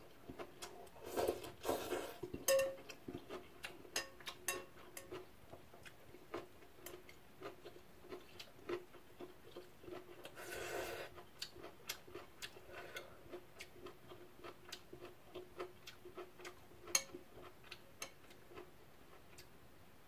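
A person eating a bowl of ramen noodles: two slurps, one about a second in and another near the middle. Many small clicks come in between, about two or three a second, from chopsticks and spoon on the bowl and from chewing.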